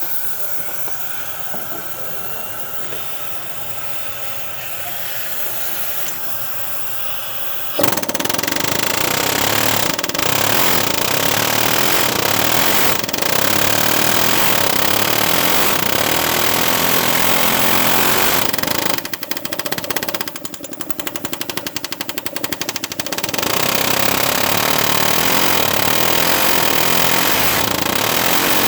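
Rapid power hammering rattling against a corroded, seized EGR valve on a 6.4 Powerstroke diesel to break it loose. A quieter hiss comes first; then, about eight seconds in, a loud, steady hammering starts. It dips briefly about two-thirds of the way through.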